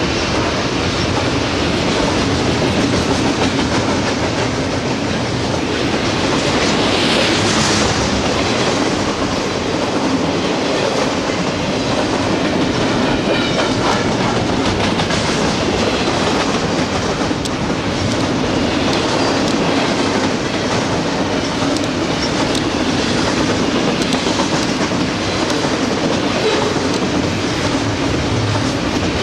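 Double-stack intermodal container freight train passing: a steady rumble of steel wheels on the rails with a clickety-clack from the well cars' wheels.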